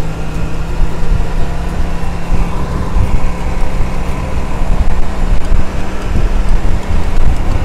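Motorcycle engine running at a steady cruising speed, with strong wind buffeting the microphone.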